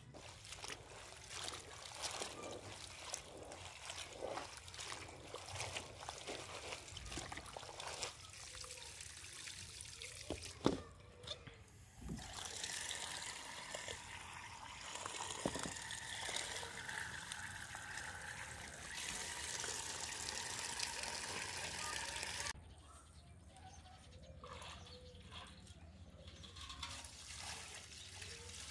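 Leafy greens being washed by hand in a steel bowl of water, with splashing and swishing of the leaves and a sharp knock about ten seconds in. Tap water then runs steadily from the tank's spigot into the bowl and shuts off abruptly about two thirds of the way through, followed by quieter sloshing.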